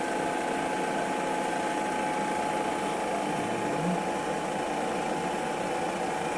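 Metal-turning lathe running, its gearing giving a steady mechanical hum with a constant high whine.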